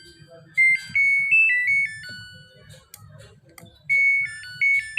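Samsung washing machine control panel buzzer beeping and playing a short electronic chime tune of stepping notes, then beeping again near the end, as its buttons are pressed. The start button now responds after the control board repair.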